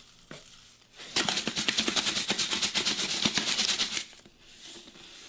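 Salt shaken out of a salt canister's spout into a metal measuring spoon: a fast, even rattle of grains lasting about three seconds, starting about a second in.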